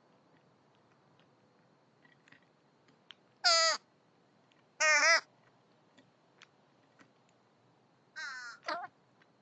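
Raven calling: two loud, short, harsh calls about three and a half and five seconds in, then two fainter calls close together near the end. Faint clicks are heard between the calls.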